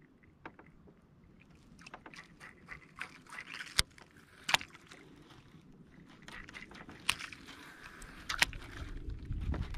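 A baitcasting reel being wound to retrieve a small swimbait, with scattered sharp clicks and knocks from handling the rod and reel in a kayak. A low rumble builds near the end.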